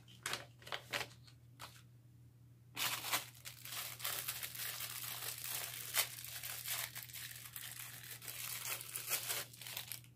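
Clear plastic packaging crinkling as it is handled, a few light clicks at first, then a dense run of crackles from about three seconds in to near the end.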